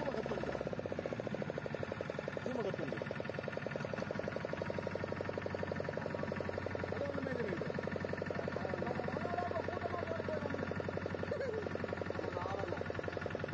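A fishing boat's outboard motor idling, a steady rapid pulse with a low hum, with a few faint wavering voices over it.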